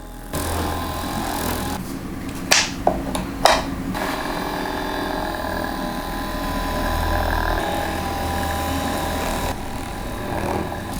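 Steady buzz of a small motorised tool, with a few sharp, loud cracks about two and a half to three and a half seconds in.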